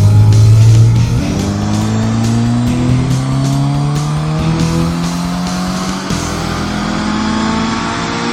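Car engine accelerating hard, its pitch climbing steadily with a couple of sudden drops as it shifts up through the gears, over background music.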